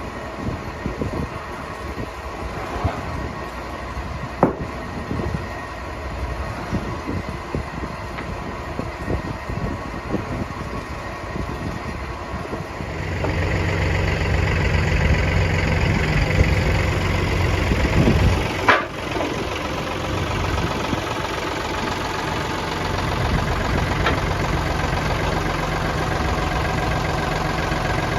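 An engine running, becoming louder and steadier about halfway through, with one sharp knock a few seconds after that.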